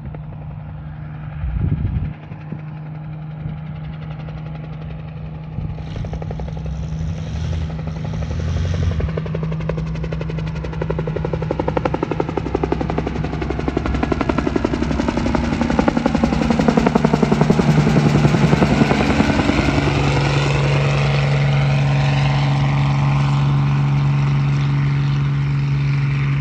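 Hiller UH-12 helicopter approaching and coming in low, the fast chop of its two-bladed main rotor over a steady engine note growing louder until about two-thirds of the way through, then holding steady as it hovers. A short knock sounds about two seconds in.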